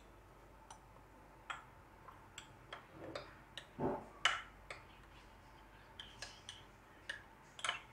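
Metal spoon stirring cornflour into warm milk in a small ceramic bowl, ticking and scraping against the bowl in faint, irregular light clicks, with a few louder ones about four seconds in and near the end.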